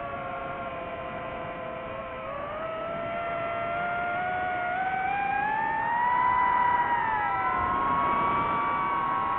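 FPV racing drone's electric motors whining, several tones at slightly different pitches. They rise together as the throttle comes up over a few seconds, then drift apart and some fall away as the motors change speed.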